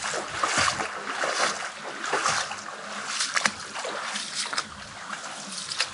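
Footsteps splashing and crunching through a shallow, stony stream: irregular steps and small splashes over the hiss of running water.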